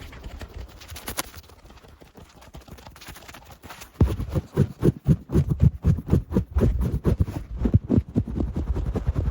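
Aggressive ASMR ear-cleaning trigger sounds: a quiet scratchy stretch with a couple of clicks about a second in, then from about four seconds in a fast run of low thumping and rubbing, several strokes a second.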